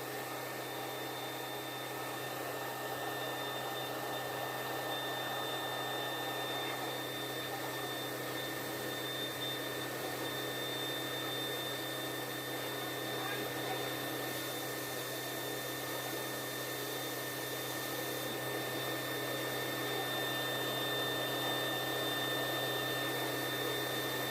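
CNC bangle-cutting machine running steadily: its high-speed spindle gives a constant high-pitched whine over a steady motor hum and rushing noise.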